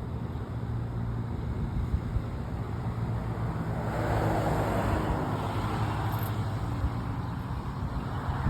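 A car passing on the road, its tyre and engine noise swelling to a peak about halfway through and then fading away, over a steady low rumble.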